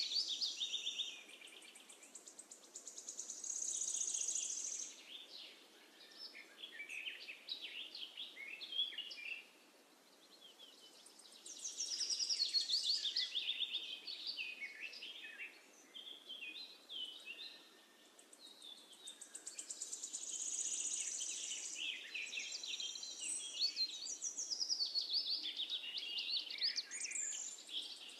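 Songbirds singing: quick high chirps and trills in phrases of a few seconds, with short pauses between them.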